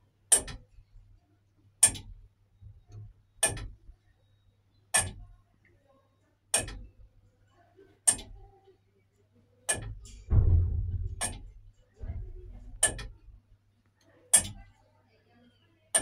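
Iron tower clock movement ticking, one sharp, even tick about every second and a half, with the hour strike about a minute away. A low rumble comes in about ten seconds in and fades out two seconds later.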